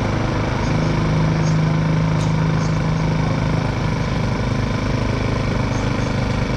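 Small moped engine idling steadily, with a stronger hum for a few seconds about a second in.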